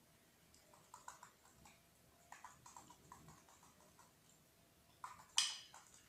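Faint scattered small clicks and taps from a cat and a cockatiel at food on a laminate floor, then one short, sharp, rasping burst about five seconds in, the loudest sound.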